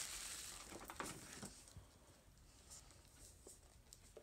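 Tissue paper rustling as it is pulled out of a gift bag for about the first second and a half, then near silence with a few faint taps of a small box being handled.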